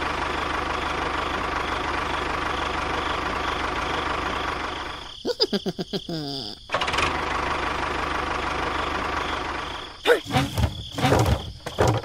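Tractor engine sound running steadily. It is cut off twice by short bursts of cartoonish sounds: sliding, warbling tones about five seconds in, and choppy chatter-like sounds near the end.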